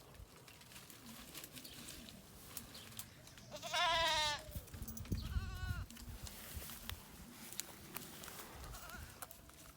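A goat bleating twice: a loud, wavering bleat about three and a half seconds in, then a shorter, fainter one about a second later.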